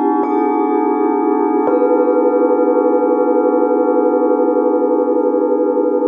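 Hand-forged singing bowls from a seven-note set, struck twice with a felt mallet in the first two seconds, the second strike adding a higher tone. Several bowls then ring on together, long and sustained, with a slow pulsing waver in the sound.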